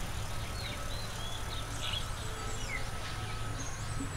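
Outdoor garden ambience: scattered short bird chirps and calls over a steady low hum.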